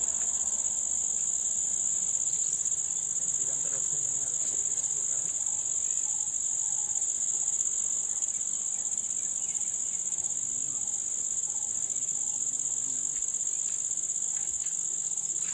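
Steady insect chorus: a continuous, high-pitched buzz that holds one pitch without a break.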